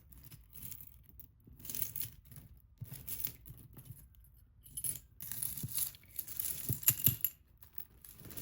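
Costume jewelry clinking and rattling as it is picked through by hand, in several short bursts, with a few sharper clicks near the end.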